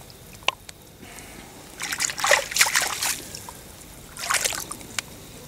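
Water splashing and sloshing as a large bream thrashes in a net held in the lake, in two spells: a longer one about two seconds in and a shorter one near the end.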